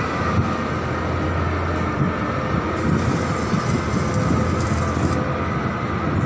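Steady, loud drone of heavy machinery running inside a construction tunnel: a constant low hum with a steady higher whine above it.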